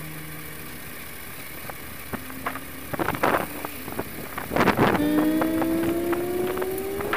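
KTM 790 Adventure's parallel-twin engine running as the bike is ridden along a lane, heard from an onboard camera with wind buffeting the microphone in a few gusts. The engine note rises steadily over the last couple of seconds.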